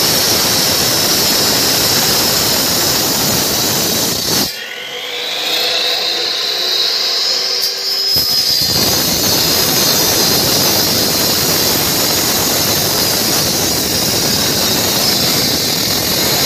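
Slab cutter with a diamond blade cutting concrete: a loud, harsh, steady grinding noise. About four and a half seconds in, the cutting noise suddenly drops away for roughly three and a half seconds, leaving a rising whine. The full cutting noise then returns for the rest of the stretch.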